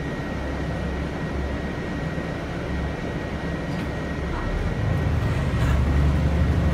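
GAGC GZ6111SN city bus engine heard from inside the cabin, running at low speed in stop-and-go traffic. The rumble grows louder about five seconds in as the bus pulls forward.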